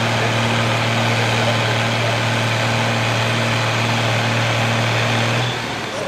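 A red International Harvester farm tractor's diesel engine running hard and steady at full load while pulling the weighted brake sled. Its note drops away about five and a half seconds in as the pull comes to a halt.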